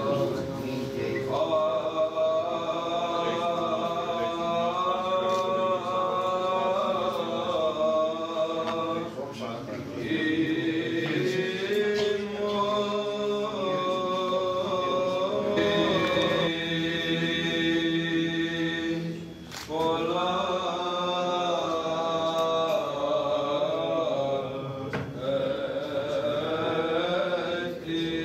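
Byzantine chant: cantors singing a slow, melismatic hymn over a held drone note (the ison), with short breaks between phrases.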